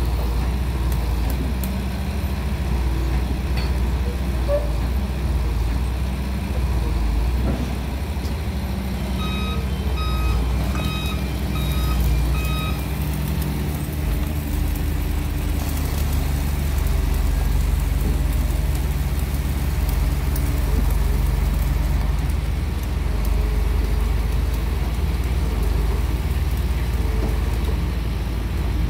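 Heavy diesel engine running steadily. From about nine to thirteen seconds in, an electronic alarm gives a series of beeps, about two a second.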